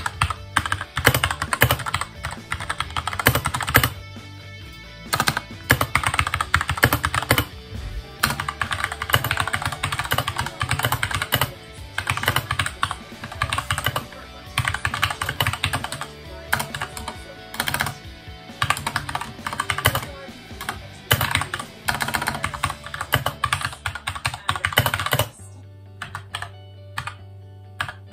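Fast typing on a computer keyboard, in quick bursts of key clicks, over background music. The typing thins out to a few scattered keystrokes near the end.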